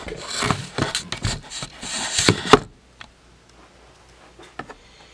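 Close handling noise: cloth rustling and brushing near the microphone with several sharp knocks, stopping suddenly about two and a half seconds in, then a few faint clicks.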